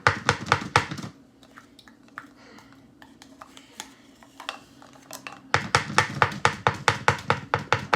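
Spoon scraping and knocking peanut butter out of its container in quick strokes. A short run of strokes comes at the start, then a lull, then a steady run of about five strokes a second from about five and a half seconds in.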